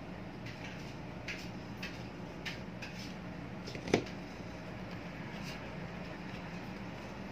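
Metal screwdriver clicking and tapping against an electric fan's blade hub and motor shaft while the shaft is being worked on, with one sharp knock about four seconds in.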